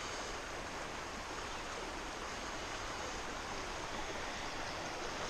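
Shallow river running over rocks, a steady, even rush of water.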